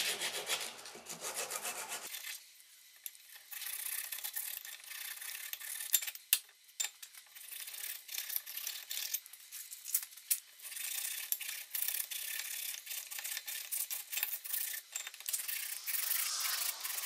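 Sandpaper wrapped around a steel rod rubbing back and forth inside the rusty bore of a cast-iron Allis-Chalmers wheel eccentric body held in a vise, a scratchy rasp that swells and fades with each stroke as the rust is scoured out. A few sharp metal clicks about six seconds in.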